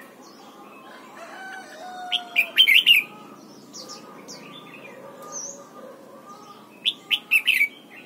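Red-whiskered bulbul singing: two short phrases of quick, clear whistled notes, one about two seconds in and one near the end, with fainter chirps between them.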